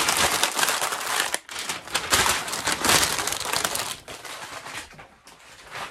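Sheets of paper being gathered up and crumpled by hand: a dense crinkling for about three seconds that then turns to softer rustling and trails off.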